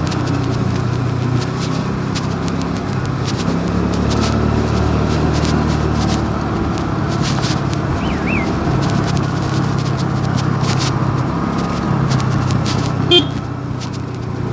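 Honda Dio 109 cc scooter's single-cylinder engine running while riding, its pitch stepping up and down a little with speed, with scattered clicks and rattles. A short loud blip near the end.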